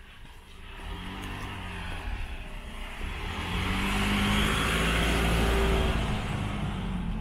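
A minivan moving off and driving slowly past close by, its engine running with tyre noise on the road. It builds up about a second in, is loudest in the middle and eases off near the end.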